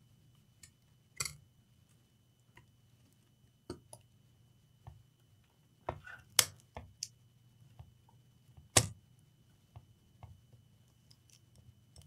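Scattered sharp clicks and light knocks of small plastic and metal laptop parts being handled as the motherboard is seated back in the chassis, over a faint steady low hum.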